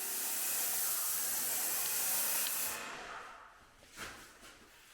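Paint sprayer spraying paint: a steady hiss that stops about three seconds in, with a faint tick a second later.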